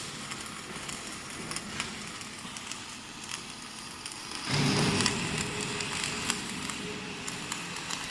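Welding arc of an automatic orbital pipe-welding machine running flux-cored wire, crackling steadily. It grows louder and fuller about halfway through.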